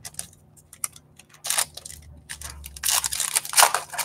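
A foil trading-card pack being torn open by hand, its wrapper crinkling and crackling in short spells, loudest near the end.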